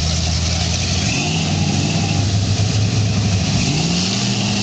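Lifted pickup truck's engine revving as it drives through deep mud on oversized mud tires, its pitch rising about a second in and again near the end.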